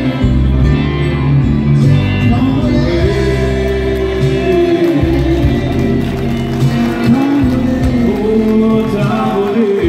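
Live country music: a man singing through a PA microphone over amplified band accompaniment with keyboard and a steady bass line.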